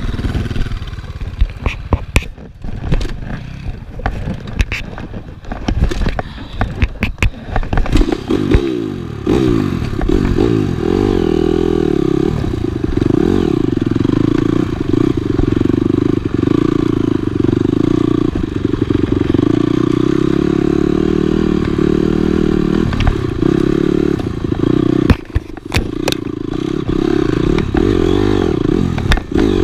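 Dirt bike being ridden on a trail, with the bike and mount rattling and knocking over bumps for the first several seconds. From about eight seconds in, the engine runs loud and steady.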